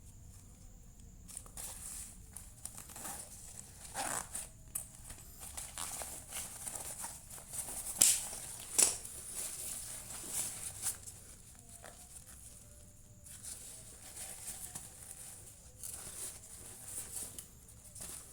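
Waist bag being handled: fabric and packaging rustling and crinkling, with scattered light clicks and two sharp clicks about a second apart near the middle.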